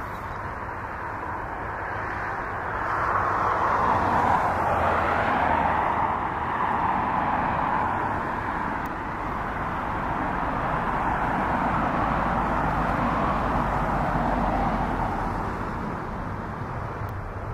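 Boeing 777-300 jet engines running at idle: a steady rushing whine that swells a few seconds in and eases off again near the end.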